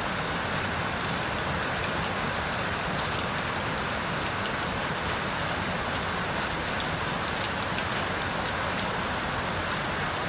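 Steady rain falling and pattering on surfaces, with many small scattered drop ticks.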